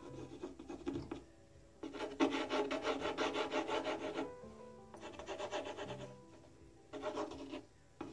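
Plastic squeeze bottle of diluted gel stain pressed to the edge of bare wood and squeezed, its tip rasping on the wood as the stain spurts out, in about four bursts, the longest and loudest in the middle.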